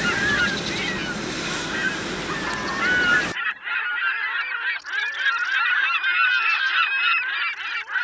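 A flock of birds calling, many overlapping calls at once. A steady rush of surf and wind noise under them cuts off suddenly about three seconds in, leaving the calls alone.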